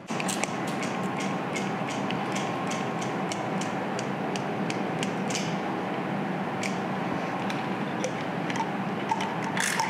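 Hand tools working inside the open gear headstock of a Monarch lathe, making a string of light clicks and ticks, about two or three a second, with a louder cluster near the end. A steady hum runs underneath.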